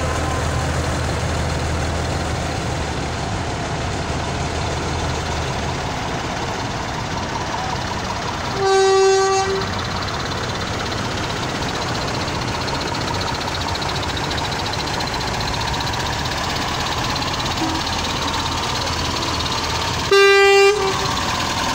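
Old trucks' engines running steadily as they drive slowly past, with a truck horn sounding twice: a blast of about a second near the middle and a shorter one near the end.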